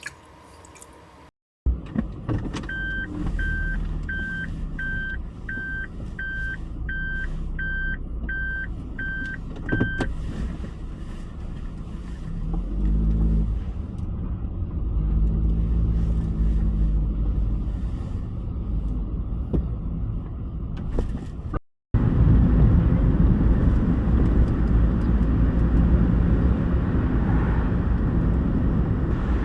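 Suzuki Solio car running, with a steady low engine and road hum and a regular electronic beep about one and a half times a second for several seconds. After a cut, a louder steady low rumble.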